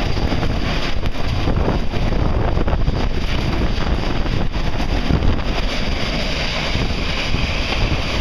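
EF-5 tornado winds blowing hard: a loud, steady rush with wind buffeting the microphone.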